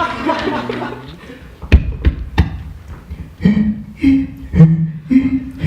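Beatboxers making sounds with their mouths: voice-like noises, then a few sharp clicks about two seconds in, then short hummed bass notes stepping up and down in pitch in a steady rhythm.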